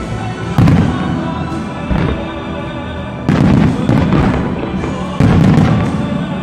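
Aerial firework shells bursting: three heavy booms about two seconds apart, with a smaller one between the first two, over loud music playing throughout.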